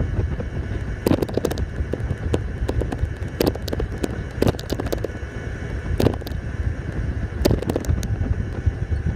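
A golf cart on the move: a steady low rumble of wind on the microphone, broken by many irregular sharp pops and rattles.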